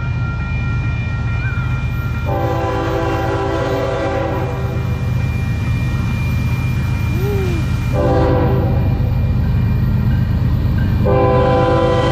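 Train passing close by with a steady heavy rumble, its locomotive horn sounding three times: a long blast a couple of seconds in, a shorter one about eight seconds in, and another starting near the end.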